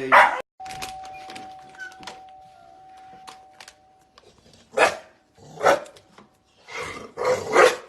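Dog barking: one bark at the start, then a run of four barks in the last three seconds.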